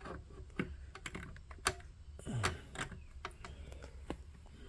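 Scattered light clicks and taps at irregular intervals from small tools and metal parts being handled at a workbench.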